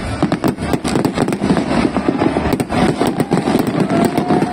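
Aerial fireworks going off in quick succession: a dense run of sharp pops and crackles from bursting shells and crackling stars, over a continuous low rumble.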